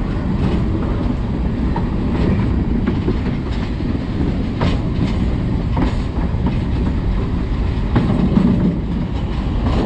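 Caboose rolling along the track: a steady low rumble from the wheels and trucks, with scattered sharp clicks and clunks as the wheels pass over rail joints and switches.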